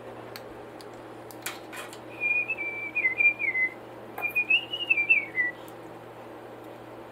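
A person whistling a tune in two short phrases, the pitch wavering up and down; the second phrase climbs, then falls away.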